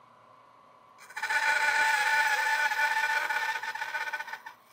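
Bandsaw blade cutting a dovetail tail cut into a mahogany board. The cut starts about a second in as a loud hiss of sawing with a steady whine over it, lasts about three seconds, and stops shortly before the end.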